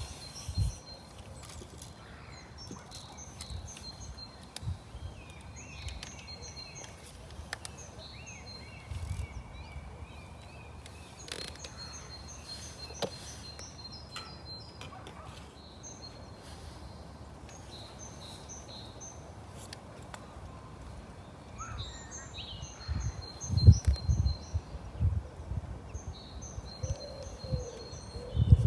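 A songbird singing short, high phrases over and over, each with a held whistle and a quick trill. A few low thumps come near the end.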